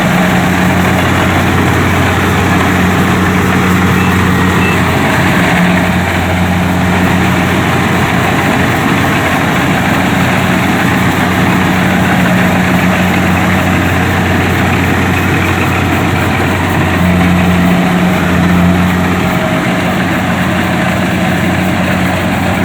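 Kubota DC-70 combine harvester's diesel engine and machinery running steadily, a constant low drone over even mechanical noise.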